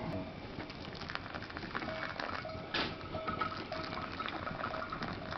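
Wood fire crackling and hissing, then hot water poured from a soot-blackened kettle into a paper coffee filter on a thermos, starting about three seconds in.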